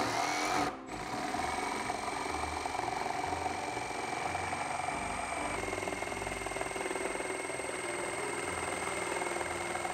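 Milwaukee M18 FUEL brushless cordless jigsaw sawing a curve through a wooden board: a short burst at the start, a brief break just before a second in, then a steady run of the reciprocating blade cutting through the wood, its high whine dropping slightly about halfway through.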